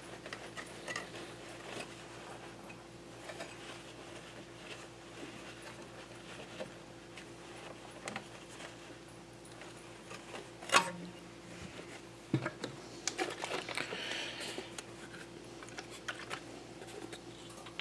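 Faint small clicks and rubbing as the metal plunger of a pinball score reel's decagon unit is turned and wiped clean with a paper towel, with a sharper click about eleven seconds in and a soft knock a second or so later. A faint steady hum sits underneath.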